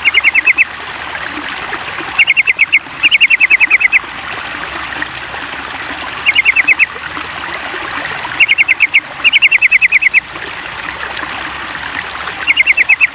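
Sooty-headed bulbul (trucukan) calling in rapid strings of five to eight short, high notes, the bursts repeating every second or two, over a steady trickle of running water.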